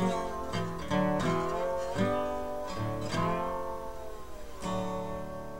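Acoustic guitar music: a run of strummed chords, with a last chord near the end left ringing and fading.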